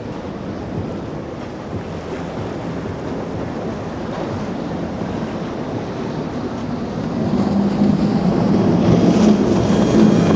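Surf and wind rushing on the microphone, with the drone of a boat's engines. From about seven seconds in, the engine grows louder as a boat comes closer.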